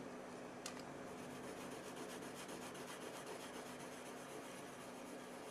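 Prismacolor colored pencil rubbing faintly on Bristol paper in quick back-and-forth strokes, filling in a color swatch, with a steady low hum underneath.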